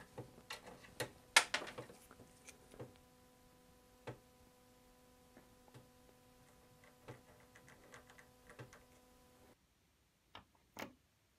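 Small irregular clicks and scratches of a thick sewing needle picking dried glue residue out of a wooden mortise-and-tenon joint, with the old door frame handled between the fingers; the sharpest click comes about a second and a half in. A faint steady hum underneath stops abruptly near the end, leaving a couple of soft taps.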